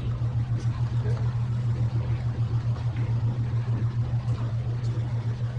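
A steady low machine hum, with faint rubbing as a cloth wipes wet-sanding slurry off the paint.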